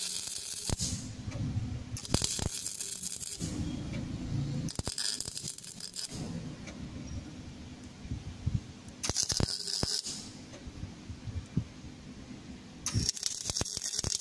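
A welding torch on a Plasco welding machine working in short bursts. A hiss of about a second comes five times at uneven intervals, with a crackling rattle underneath.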